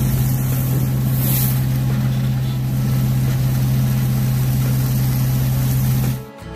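Hydroseeder's engine and pump running steadily while the deck-mounted nozzle sprays mulch slurry: a steady hum under a hissing rush. It cuts off suddenly near the end.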